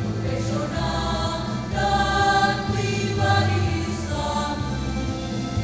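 Student choir singing in harmony, several voices holding long notes that move together from chord to chord.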